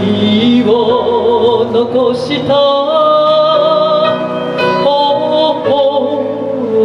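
A woman singing a chanson through a handheld microphone over musical accompaniment, holding long notes with a wide vibrato.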